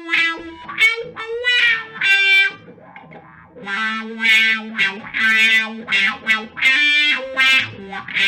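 Electric guitar played through a Moen Jimi Nova univibe-style chorus/vibrato pedal: picked notes and chords, a short lull about three seconds in, then fuller ringing chords whose loudness swells and dips.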